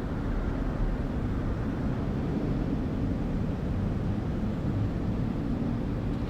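City ambience: a steady low rumble with no distinct events standing out.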